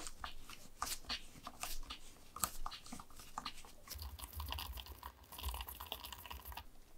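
A screwdriver turning a small screw out of an antique monocular's metal housing: irregular gritty clicks and scrapes, thickening into a steady grinding scrape about four seconds in that cuts off just before the end.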